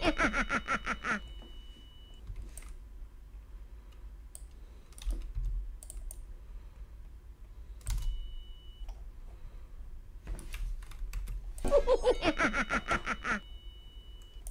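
Computer keyboard keys and mouse buttons clicking now and then, over a low electrical hum. Two brief pitched passages break in: one in the first second and another about twelve seconds in.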